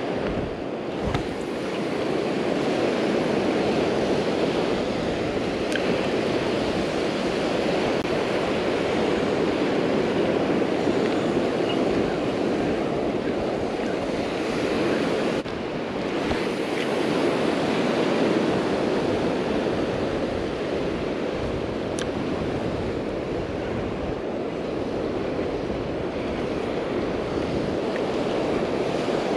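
Steady rush of small surf waves breaking and washing up a shallow beach, mixed with wind on the microphone.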